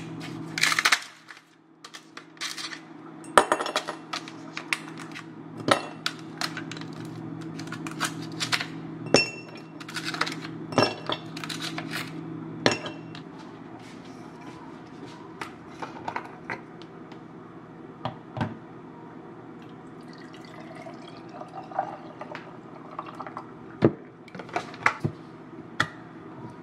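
Ice cubes clinking against a glass mason-jar mug, a rapid run of sharp clinks over the first half. Then coffee is poured over the ice with a faint rising pitch as the jar fills, and a few more clicks near the end.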